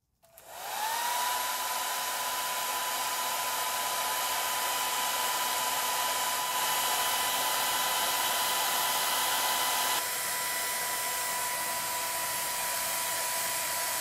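Salonia Speedy Ion hair dryer switched on: its motor spins up with a rising whine, then runs steadily, a steady high whine over the rush of air. About ten seconds in the sound becomes slightly quieter and duller.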